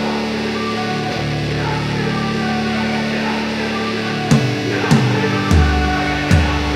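Background music: held chords at first, then a beat with low bass notes comes in about four seconds in.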